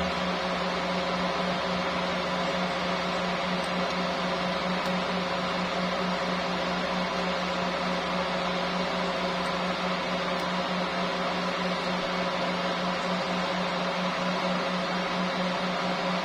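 Steady fan hum: a constant low tone over an even whooshing hiss that does not change.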